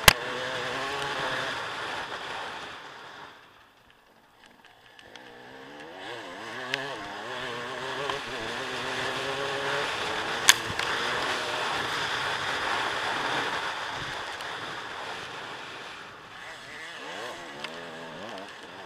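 Dirt bike engine running on a trail ride, its pitch rising and falling as the throttle is worked. It drops away almost to nothing for about a second near the four-second mark, then picks back up. A few sharp knocks come through, the loudest near the start and about ten seconds in.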